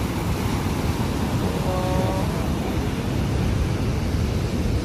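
Ocean surf breaking and washing over a rocky reef shore: a steady rushing noise with a heavy low rumble.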